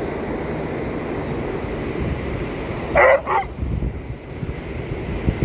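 A dog barks twice in quick succession about three seconds in.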